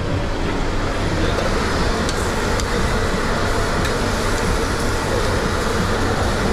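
Steady commercial-kitchen din: a constant fan-like hum and hiss with a few light clicks and clinks.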